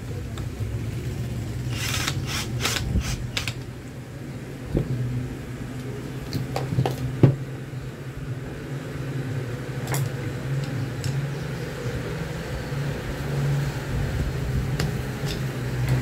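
Handling and assembly noises of a wall-fan motor being screwed back together: a quick series of clicks about two seconds in, then scattered knocks and taps, the sharpest about seven seconds in. A steady low hum runs underneath.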